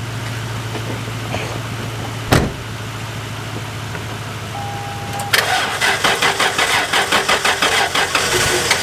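Supercharged V6 of a 1998 Toyota Tacoma being cranked over by its starter on a jump after five years sitting, not yet firing. At first there is a steady hum and one sharp click. A short beep comes just before the rhythmic pulsing of the cranking sets in, about five seconds in.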